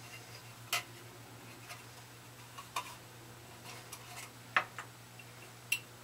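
A handful of small, scattered clicks and taps from an Allen wrench being fitted to the set screw on the hub of a furnace blower's plastic squirrel-cage fan wheel. The loudest click comes about four and a half seconds in.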